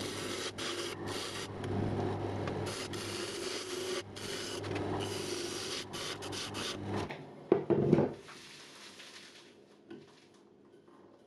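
Bowl gouge cutting an old, dry end-grain bowl blank spinning on a wood lathe: a continuous rough scraping over the lathe motor's steady hum. A louder bite comes just before eight seconds in, then the lathe is switched off and the sound dies away to quiet.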